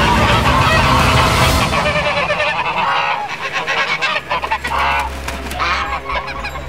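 Fowl honking in repeated short calls. A steady low hum comes in about four seconds in.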